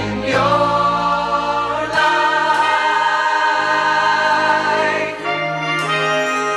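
Choir singing long held chords, moving to a new chord about two seconds in and again near five seconds.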